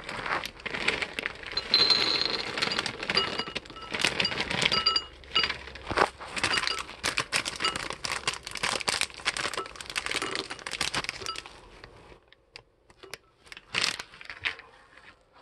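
A plastic cereal bag crinkling while dry cereal rattles and patters into a bowl in a dense run of clicks, thinning out over the last few seconds.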